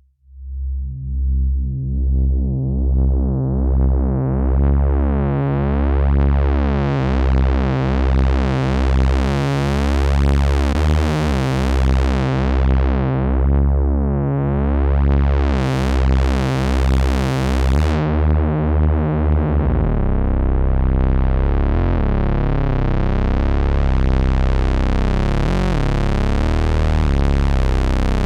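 Moog Minitaur analog bass synthesizer playing a repeating deep bass line. The tone grows steadily brighter, peaks about two-thirds of the way through, then turns darker. Near the end it gives way to a denser, sustained low drone.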